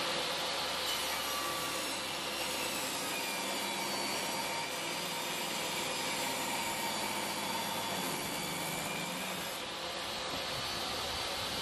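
Table saw running and ripping a wooden board along the fence: a steady motor whine with the noise of the blade cutting through the wood, easing slightly near the end as the cut finishes.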